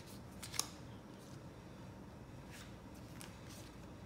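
Tarot cards handled and laid onto a stack of cards: a short crisp tap about half a second in, then a few faint papery swishes of card stock.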